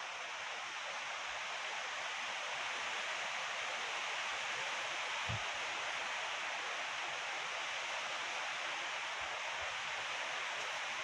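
Wind blowing steadily, an even rushing hiss, with a brief low buffet of wind on the microphone about five seconds in.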